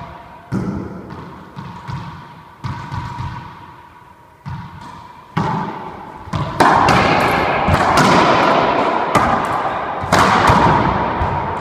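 A racquetball bounces on the hardwood court floor a few times, about a second or more apart, before the serve. Then, from about five seconds in, a rally follows: rapid racquet strikes and the ball smacking off the walls and floor, echoing loudly in the enclosed court.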